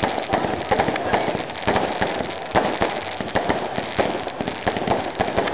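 Aerial fireworks going off: a dense, irregular run of sharp pops and bangs, many a second, from the small bursting stars.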